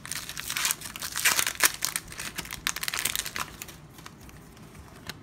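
Crinkling and crackling of a Pokémon booster pack's foil wrapper as it is handled and pulled open. It dies down after about three and a half seconds to light handling of the cards.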